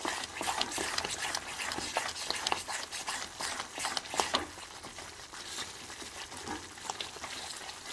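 Wooden spatula stirring and scraping thick moong dal halwa in a pan, with many small irregular pops and spits as the bubbling mixture spatters. The halwa is thickening while its milk and water cook off.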